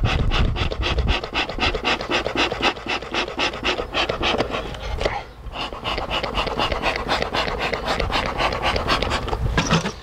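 A dog panting fast, about five breaths a second, with a short break about halfway through.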